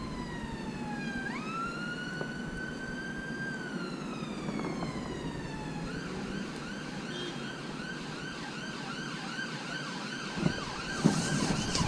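Emergency vehicle siren: a slow wail that falls, rises and falls again, then switches about six seconds in to a fast repeated yelp. A couple of brief knocks come near the end.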